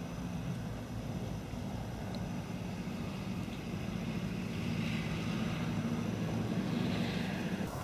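A steady low engine drone, swelling slightly in the second half.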